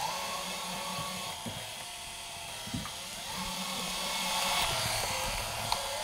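Kyvol Cybovac E31 robot vacuum running in mop mode with its water tank fitted: a steady motor whir with a faint higher whine, swelling slightly about four to five seconds in. A small click comes near three seconds.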